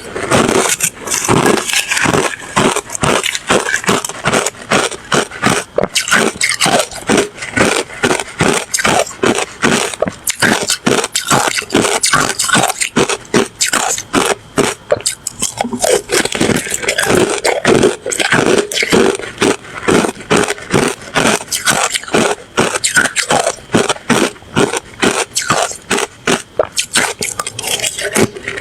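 A person chewing ice: a rapid, continuous run of loud crunches and cracks as the ice is bitten and ground between the teeth, easing briefly about halfway through.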